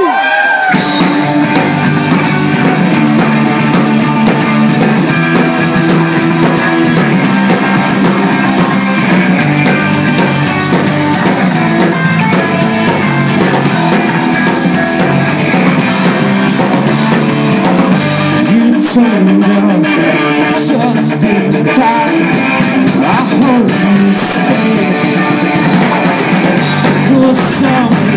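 Live rock band playing loudly: electric guitars, bass and drum kit.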